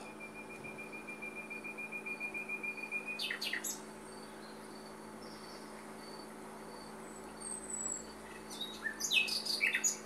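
Birds singing the morning chorus: a long, steady high trill for about the first three seconds, then scattered short chirps and faint repeated high notes, with a quick flurry of chirps near the end.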